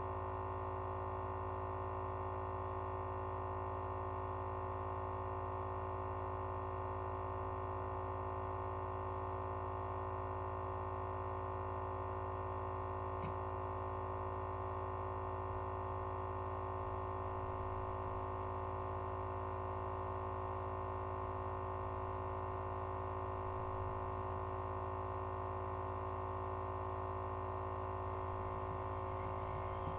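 Nebulizer air compressor running through a breathing treatment, a steady, unchanging electric hum made of many tones.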